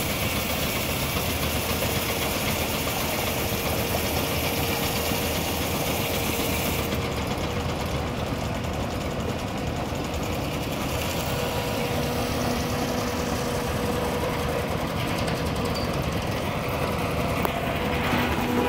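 Portable steam engine driving a sawmill, running steadily with a constant mechanical noise and a faint steady whine.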